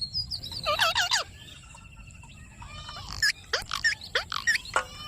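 Indian ringneck parakeet chattering: a quick run of warbling calls about a second in, a faint trill, then a string of sharp calls sliding down in pitch near the end.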